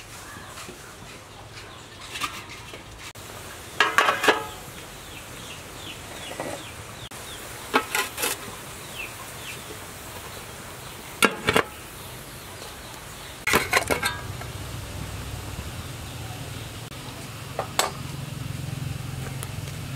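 Aluminium steamer pot and lid clanking and rattling about five times as they are handled, with chickens clucking faintly in the background.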